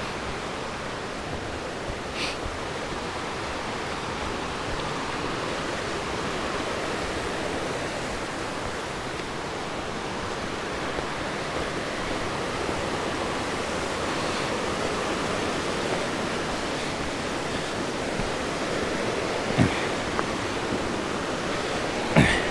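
The Gray Wolf River rushing: a steady rush of fast water that grows slightly louder, with a faint tap about two seconds in and another near the end.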